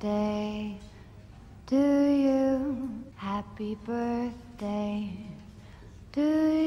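A woman's singing voice holding long notes one after another, with short breaks between them.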